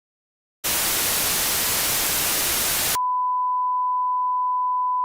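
A moment of silence, then television-style static hiss for about two seconds that cuts off abruptly into a steady single-pitched beep tone, the static and test tone of a broadcast gone off the air.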